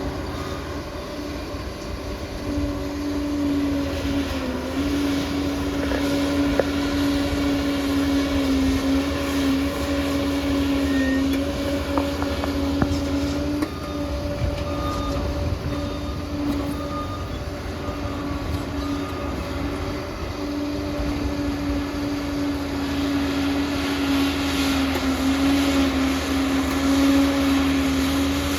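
Crawler bulldozer's diesel engine running steadily under load, its pitch dipping slightly now and then, with metallic clatter from the tracks and blade.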